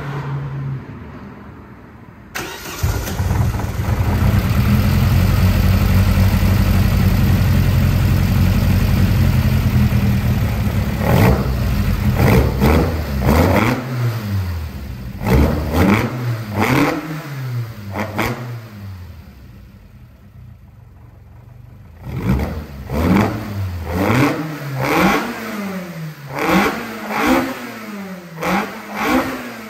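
Vauxhall C20XE 2.0 16-valve four-cylinder on individual throttle bodies, starting for the first time after a long lay-up and upgrades: it catches about two seconds in and runs at a steady fast idle. It is then revved in quick throttle blips about one a second, revs rising and falling sharply, settles back to idle briefly, and is blipped again.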